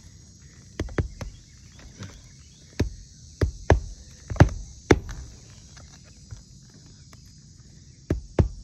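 Roofer's hand tools knocking on roof shingles during a shingle repair: a run of sharp, irregular strikes, a pause of about three seconds, then more strikes starting near the end.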